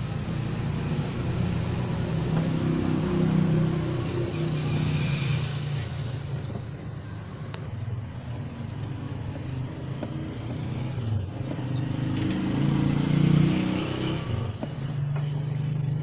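Low rumble of motor vehicle engines, swelling twice: about three seconds in and again near the end.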